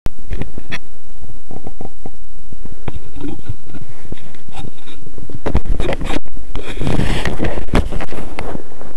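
Mountain bike jolting over wet, slushy asphalt, heard through a cheap bike-mounted camera: irregular knocks, rattles and rumble, heavier and more continuous from about five and a half seconds in, with a brief cut-out near six seconds.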